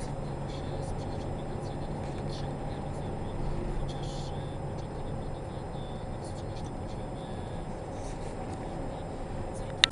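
Steady engine hum and road noise inside the cabin of a moving car, with faint small ticks and rattles, and a sharp click right at the end.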